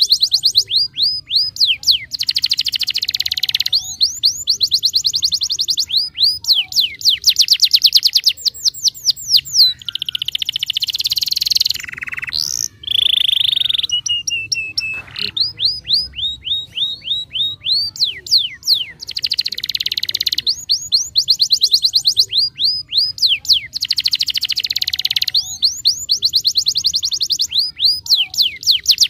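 Domestic canary singing vigorously: long runs of rapid trills, each made of quick falling notes, broken by short pauses, with a few held whistled notes near the middle.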